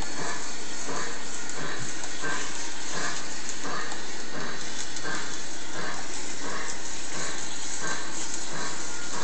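An O scale model steam locomotive's onboard sound system plays a steady, slow chuff, about one and a half chuffs a second, over a constant hiss as the engine creeps along.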